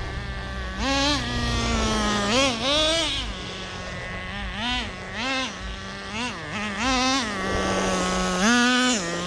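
Traxxas Nitro Rustler's small nitro engine idling with a high-pitched buzz and revving up in about eight or nine short throttle blips, each falling back to idle. It is bogging a little bit on the revs.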